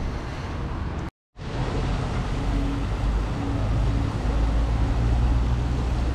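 Car running, heard from inside the cabin: a steady low rumble of engine and road noise. The sound cuts out completely for a moment about a second in, and a faint beep repeats in short dashes over the rumble from about two and a half seconds in.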